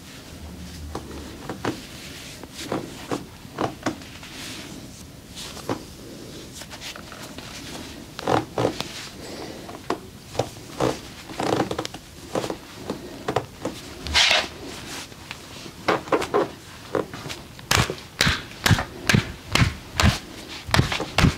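Hands slapping and tapping on a person's body in a percussive massage: sharp slaps, scattered at first, come thicker from about eight seconds in and settle into a steady beat of about two to three a second near the end.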